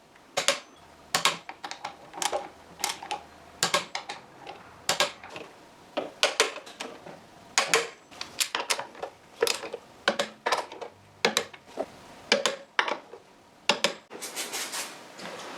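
A series of sharp metallic clicks and clacks, roughly one a second, as tools and parts are handled, with a short, denser rattle near the end.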